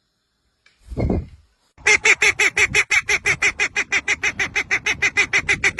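A bird calling in a rapid, steady series of harsh honking notes, about six or seven a second, starting about two seconds in. Just before the calls there is a brief low rustling noise.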